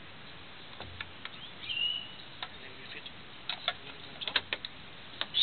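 Plastic parts of an Oscar Pro juicer clicking and knocking together as they are fitted by hand, in scattered sharp ticks that bunch up near the end. A bird chirps once about two seconds in.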